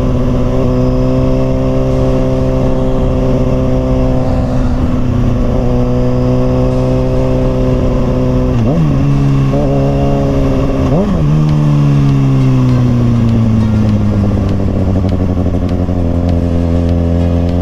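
Kawasaki ZX-6R 636's inline-four engine running under way at a steady engine speed, heard from the rider's seat. About nine and eleven seconds in, the pitch swings sharply twice. Then the note falls slowly as the bike slows.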